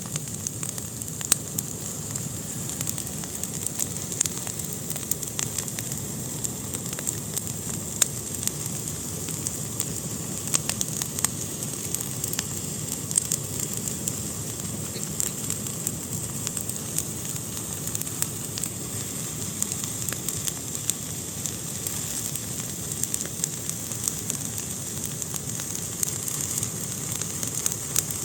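Fire burning in a fireplace: a steady hiss with frequent sharp, irregular crackles and pops.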